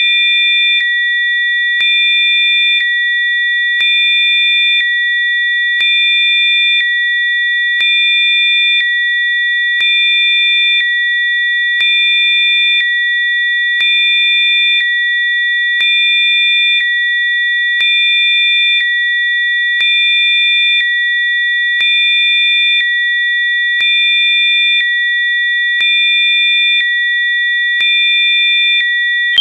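Electronically generated sine tones: a chord of steady, high-pitched pure tones held without a break, its level stepping slightly up and down about once a second.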